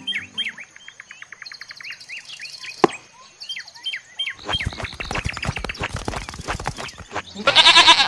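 Birds chirping and tweeting, then a goat bleating over the second half, its loudest call just before the end.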